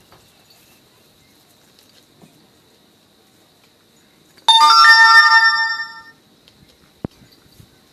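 A single loud bell-like chime that strikes suddenly about halfway through and rings out with several steady tones, fading away over about a second and a half. A sharp click follows near the end.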